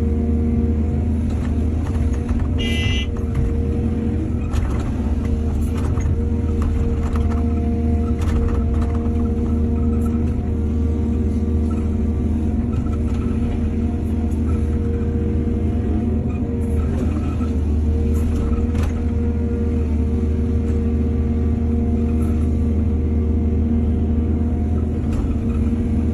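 Heavy diesel engine of earthmoving machinery running steadily, with scattered knocks and clanks. A brief high-pitched tone sounds about three seconds in.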